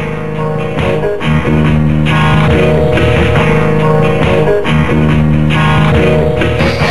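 Music led by plucked guitar over bass, with a steady beat.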